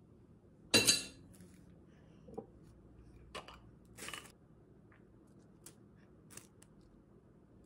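A handful of short clinks, knocks and rustles from kitchen handling as toppings are added to a sandwich on a wrapping sheet, the loudest about a second in and smaller ones at irregular gaps after it.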